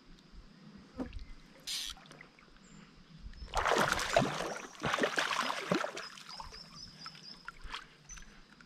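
A hooked trout thrashing at the water's surface while being played on a spinning rod, splashing loudly for about two and a half seconds midway.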